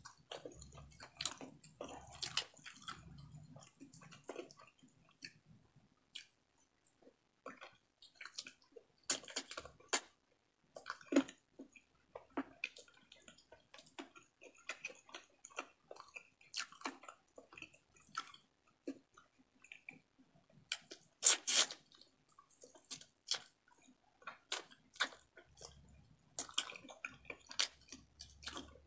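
Close-miked mouth sounds of a person chewing and biting frog meat eaten by hand: irregular wet clicks and smacks, with one sharper click about two-thirds of the way through.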